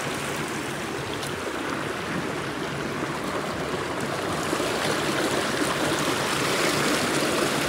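River water flowing, a steady rushing and trickling, a little louder in the second half.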